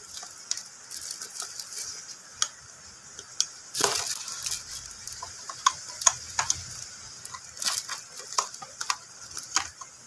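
Clear plastic wrapping crinkling and small plastic parts clicking and ticking while a dark filter glass is fitted into a black plastic welding face shield, with a louder crinkle about four seconds in.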